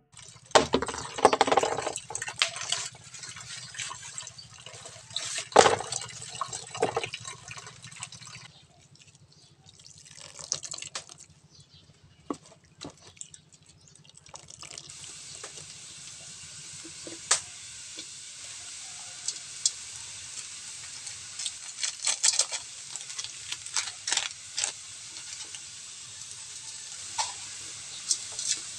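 A cleaver chopping on a wooden block with a run of sharp knocks. Then wet squelching and dripping as grated coconut is squeezed by hand to wring out coconut milk, over a steady hiss.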